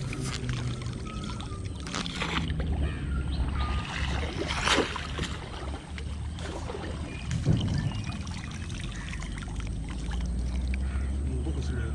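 Water sloshing around a wader and dripping from a wet cast net as it is gathered in and lifted from waist-deep creek water, with a sharper splash about halfway through.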